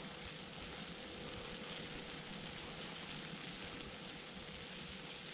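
Faint steady hiss with a thin steady hum underneath; no distinct knocks or other events.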